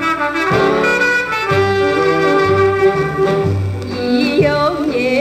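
Instrumental passage of a Taiwanese Hokkien pop song: a horn melody with long held notes over a stepping bass line. A wavering voice-like line comes in near the end as the singing resumes.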